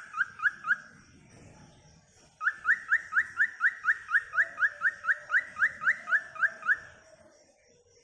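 Cockatiel calling in a fast, even series of short rising whistled chirps, about four or five a second. The series breaks off within the first second, pauses briefly, then resumes and runs until near the end.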